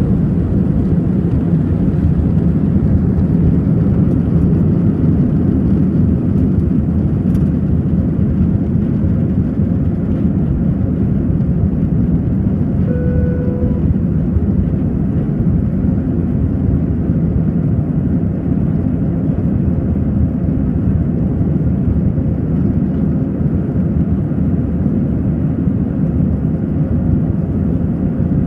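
Airbus A319 jet engines at takeoff thrust heard from inside the passenger cabin: a loud, steady, deep rumble as the airliner leaves the runway and climbs. A short tone sounds about 13 seconds in.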